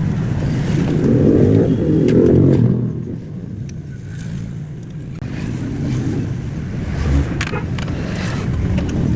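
A vehicle engine running as a low rumble, louder in the first three seconds and then easing off, with a few sharp clicks later on.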